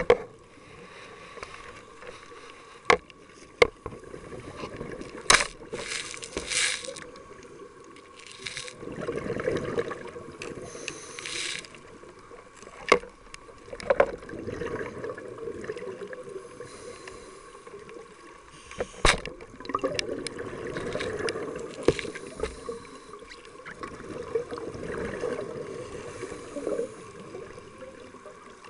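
Scuba divers' regulators heard underwater: exhaled bubbles rushing and gurgling in swells of a second or two, broken by several sharp clicks and knocks of dive gear.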